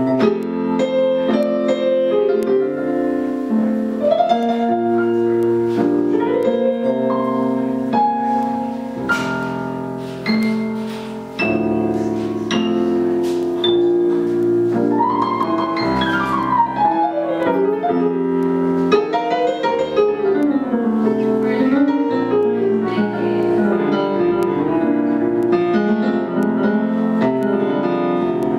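Instrumental break on a stage piano: chords and melodic runs in a blues-ballad style. Through the middle, a wailing lead line bends up and down in pitch over the piano.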